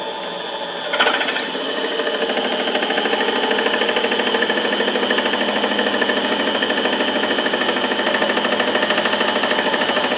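Small benchtop metal lathe running with a steady whine as a twist drill bit, fed in from the tailstock, cuts into a spinning titanium bar. About a second in, the sound turns into a louder, fast, rough grinding that holds steady from then on.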